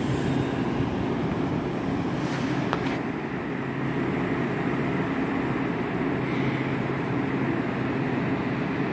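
Steady hum of a Metro-North M8 electric commuter train standing at the platform, its onboard equipment running, with a faint click about three seconds in.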